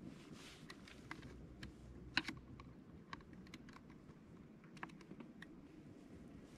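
Quiet, scattered small clicks and taps from hands working tackle and slush at an ice-fishing hole. The sharpest is a quick pair of clicks about two seconds in.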